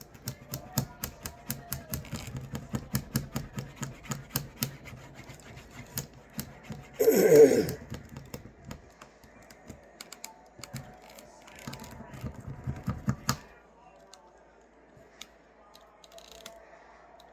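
Edge of a leather sheath being burnished by hand: quick rubbing strokes heard as a run of clicks, about two to three a second, stopping about three-quarters of the way through. A short voice sound falling in pitch comes about midway.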